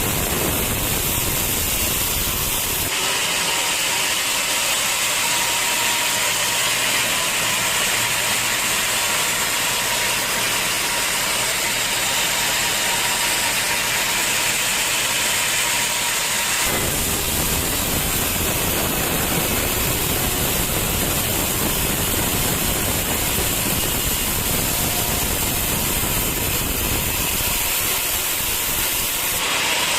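Sawmill saw machinery running with a steady loud mechanical hiss and hum, its sound changing abruptly about three seconds in and again past the halfway point.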